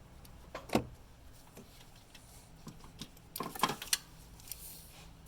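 A few separate sharp metallic clicks and clinks from hand tools and parts being handled, with a short cluster of them about three and a half seconds in.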